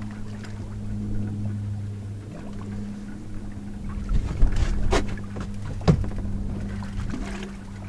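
Steady low hum on a small fishing boat, with a few sharp knocks and clicks from handling the rod and reel about halfway through.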